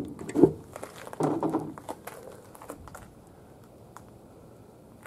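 Handling noise from a plastic tail light housing being moved on a ribbed plastic bed liner: a few short rustles and knocks in the first two seconds, then low room tone.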